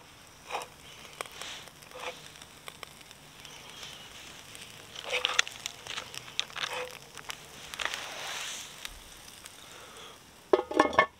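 A campfire crackling, with scattered light clicks and knocks as a pizza is lowered into a cast-iron Dutch oven. Near the end the heavy cast-iron lid clanks onto the pot in a quick run of ringing knocks, the loudest sound.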